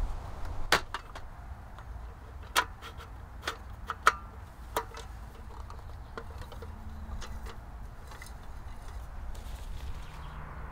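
Sharp metallic clicks and rattles of a lightweight slatted folding camp table being unfolded and snapped together: a handful of loud clicks in the first five seconds, then fainter ones.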